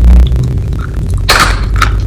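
Close-miked eating sounds: chewing with short crackly, wet mouth noises about a second and a half in, over a low rumble, with a heavy low thump right at the start.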